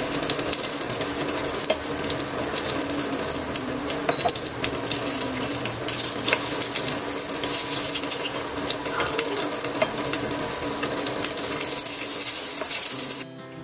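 Chicken nuggets shallow-frying in oil in a nonstick pan: a steady sizzle full of small crackles and pops, with light scrapes and clicks as a metal spatula turns them. The sizzle cuts off suddenly near the end.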